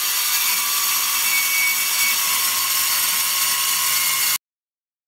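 Milwaukee 8-inch metal-cutting circular saw with a carbide-tipped blade cutting through steel plate: a loud, steady, high-pitched cutting noise that cuts off abruptly about four seconds in.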